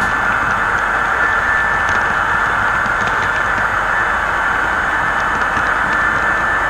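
HO scale model freight cars rolling past close by: a steady rolling hiss from the wheels on the track, with faint scattered clicks.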